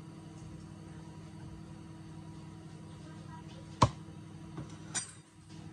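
Minced garlic frying in oil in a nonstick wok while a silicone spatula stirs it, over a steady low hum. A sharp knock of the spatula against the pan about four seconds in, and a lighter one about a second later.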